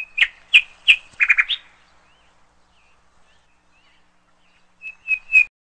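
A bird chirping: a quick run of about eight sharp chirps in the first second and a half, faint twitters after, then three more chirps near the end.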